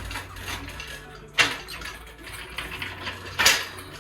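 Two sharp metallic clanks about two seconds apart, with lighter clicks and knocks between them, from tools or parts being handled.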